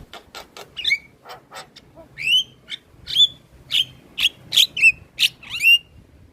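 Javan myna singing vigorously: a quick run of short dry clicks, then a string of about eight loud, harsh, down-slurred notes in quick succession.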